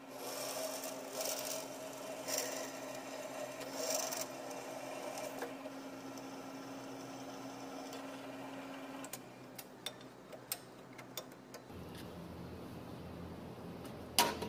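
Drill press running, its bit cutting into a steel block with scraping bursts over the first few seconds. The motor's steady hum stops about nine seconds in, followed by light clicks and a sharp metallic clank near the end.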